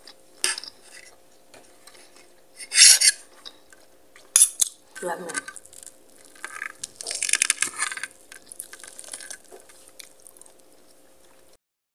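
Metal fork and spoon scraping and clinking against a plate in a series of short, separate bursts while food is cut and scooped, the loudest about three seconds in and a longer, busier scraping stretch a little past the middle.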